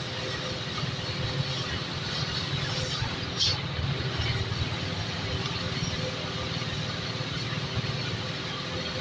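Oxy-fuel cutting torch hissing steadily as its flame burns through a rusty steel bar. One short sharp crack sounds about three and a half seconds in.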